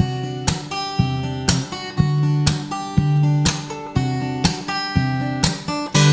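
Background music: an acoustic guitar strummed in chords at a steady rhythm, about two strokes a second.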